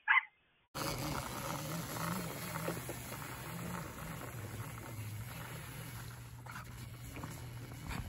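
A dog gives a short bark at the very start. Then a child's mini four-wheeler's small engine runs steadily with a low, wavering hum as it tows a sled over snow, under a haze of outdoor noise.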